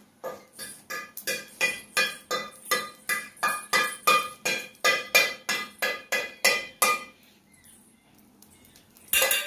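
Metal being struck in a fast, even rhythm, about four ringing strikes a second, stopping about seven seconds in; a short burst of metallic clatter follows near the end.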